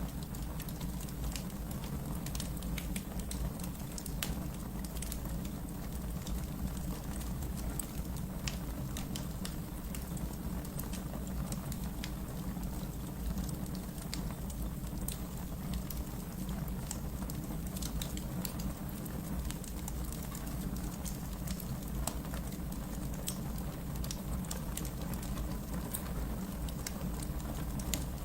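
Wood fire burning in a fireplace: a steady low rumble of flame with many small, irregular crackles and pops.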